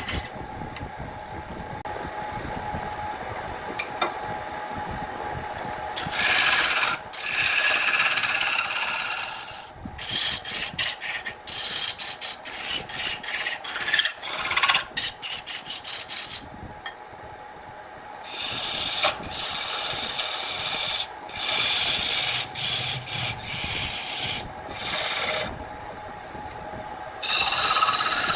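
A wood lathe runs with a steady hum while a hand-held turning tool cuts into the spinning wood blank. The shavings peel off with a scraping hiss in long passes, and around the middle the cuts come as a quick run of short strokes.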